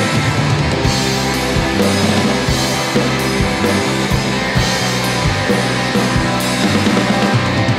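Instrumental post-rock with electric guitar, bass and drum kit, the bass moving through a series of held notes under steady drum hits and cymbals.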